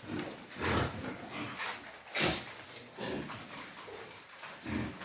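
Pigs grunting and squealing in a string of separate calls, the loudest about two seconds in.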